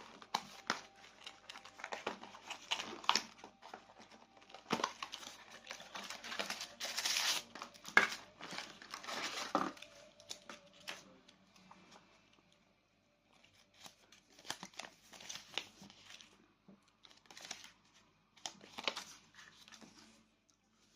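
Packaging being handled, crinkling and rustling in short bursts. The bursts are busy through the first ten seconds, stop briefly, then come back more sparsely.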